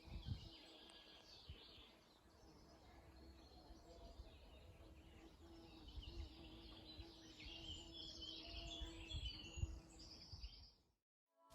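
Faint birdsong, small birds chirping over a low rumble; the chirping grows busier in the second half and cuts off just before the end.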